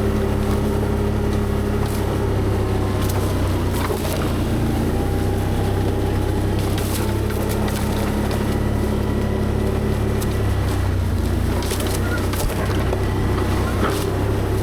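ATV engine running steadily under load while climbing a steep, overgrown trail. Scattered short snaps and knocks are heard, typical of brush and saplings hitting the machine.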